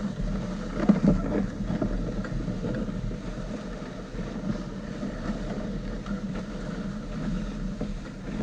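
Steady rushing and scraping of a dog sled gliding over packed snow behind its pulling team, with wind on the microphone and a few bumps and knocks about a second in.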